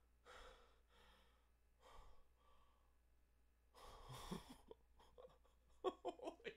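Near silence with a man's soft breaths close to the microphone, three of them, then a run of short clicks near the end.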